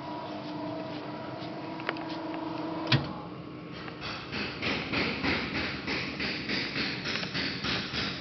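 Steady hum of the guillotine shear's machinery, which stops with a sharp knock about three seconds in. A run of quick, regular taps follows, about three a second.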